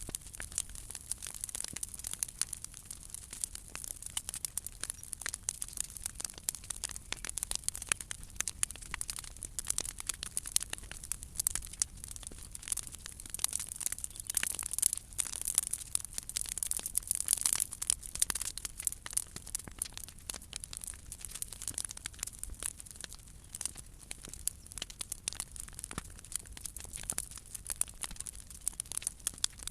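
Big bonfire of old timber decking and cut branches burning, with dense, continuous crackling and popping.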